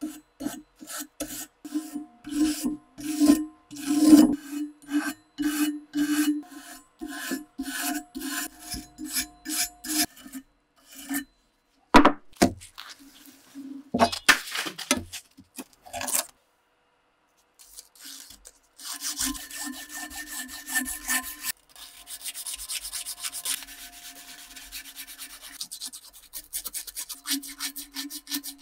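Rusty steel axe head being scrubbed and sanded by hand. Regular rubbing strokes, about two a second, come first, then a few louder scrapes and a sharp click midway, then faster, finer sanding strokes to the end.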